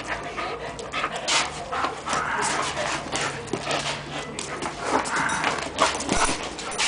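Cimarrón Uruguayo dog panting close to the microphone, in quick, irregular breathy puffs.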